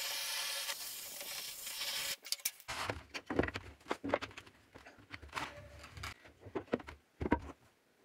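A steady hiss for about the first two seconds, then scattered knocks, rubs and scrapes of a PVC plastic sheet being handled and folded on a workbench.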